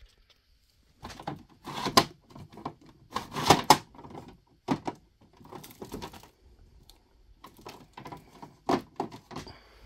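Irregular clicks and knocks of hard plastic as the rear paper support of a new Canon Pixma iX6850 printer is handled. The loudest knocks come about two seconds in and around three and a half seconds, with lighter clicks after.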